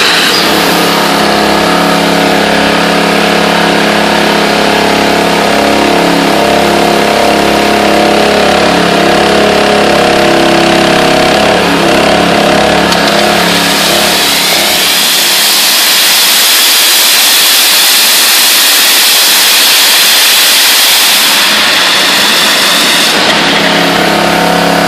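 NLB Spin Jet, a 40,000 psi ultra-high-pressure rotating water jet, running steadily across the floor: a loud, continuous hiss of the jet with a steady pitched hum under it. About halfway through the hum drops away and the hiss turns brighter and higher, and the hum returns near the end.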